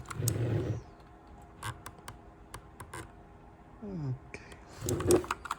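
Handling noise and a run of light, separate clicks from a mechanical keyboard being handled, with a louder rustle near the end.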